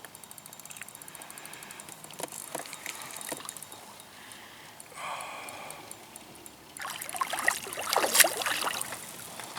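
A big brown trout being played beside a canoe. A fishing reel's drag clicks rapidly at first, then come scattered knocks, and irregular splashing of water grows loudest in the last few seconds as the fish resists being brought in.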